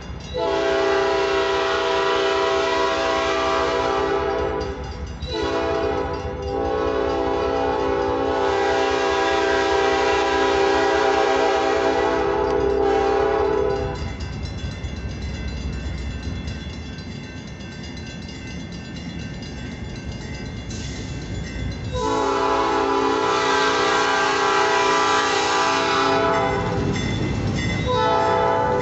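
A diesel locomotive's air horn sounds long blasts as the train approaches: one blast, a short break, a long blast lasting several seconds, then a pause and another long blast near the end. In the pause the locomotive's low engine rumble can be heard.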